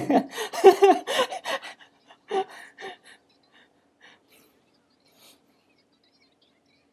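A person's voice: a sharp, gasp-like outburst, then breathy vocal sounds that fade out after about three seconds.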